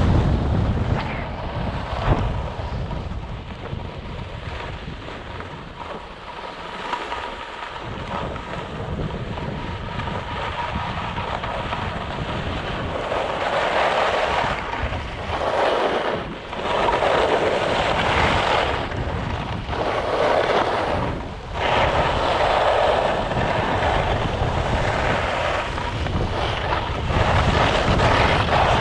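Skis scraping over hard-packed snow during a descent, mixed with wind rushing over the microphone. The scraping grows louder about halfway through and comes in swells a few seconds long, with brief dips between them.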